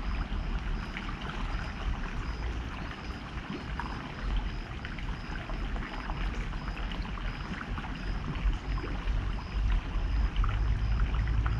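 River water flowing steadily, an even rushing noise over a low rumble.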